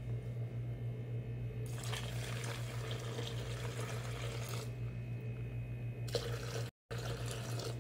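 Room-temperature water poured onto coarse-ground coffee in the paper-lined filter of a Toddy cold-brew maker, the first wetting of the grounds: a steady splashing hiss that starts about two seconds in, breaks off after the middle and resumes near the end, over a low steady hum.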